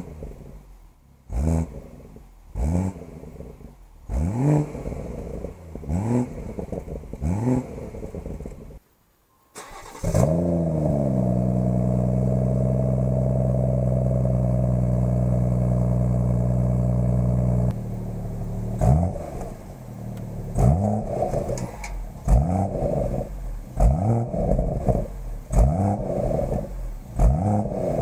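2017 BMW M140i's 3.0-litre turbocharged straight-six, stationary and revved in short blips about once a second. About ten seconds in, the revs climb and are held steady at a high pitch for about seven seconds, then drop back to quick blips.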